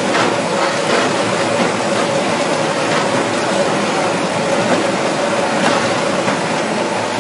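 Rotary veneer peeling lathe running, its motor and chain drive turning a log between driven rollers: steady mechanical noise with a constant hum and a few light knocks.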